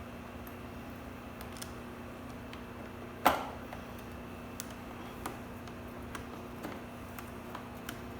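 One sharp knock about three seconds in, then scattered light clicks, as the positive cable and its bolt are fitted to the terminal of a new ATV battery. A steady low hum runs underneath.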